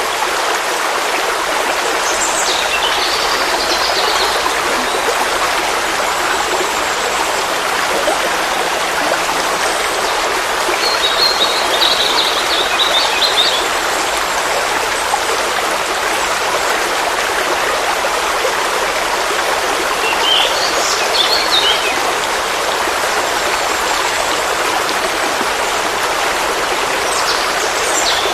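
Forest stream flowing steadily, a continuous rush of water, with a few short bird calls over it: one about two seconds in, a longer chirping trill around the middle, another call about two-thirds of the way through, and one near the end.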